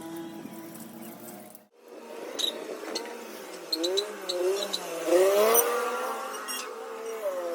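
Royal Enfield Continental GT 650 parallel-twin engine being revved several times, its pitch rising and falling, loudest about five seconds in. The sound cuts out briefly just under two seconds in.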